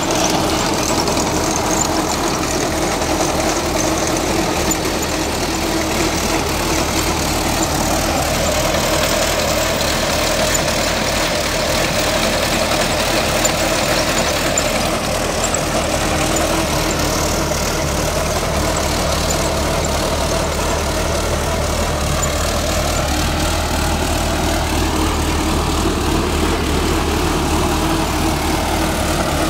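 Sonalika 750 tractor's diesel engine running steadily at low throttle while pulling a pipeline trench-digging machine through the soil.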